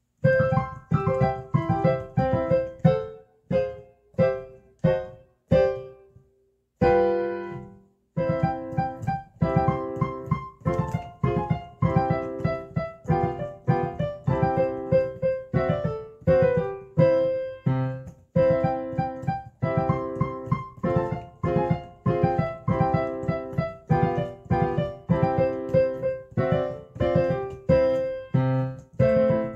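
Background piano music made of short, quickly repeated notes, with a brief break about six seconds in before it carries on.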